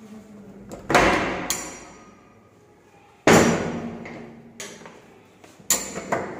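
Three loud bangs about two and a half seconds apart, each fading out slowly with a ringing echo.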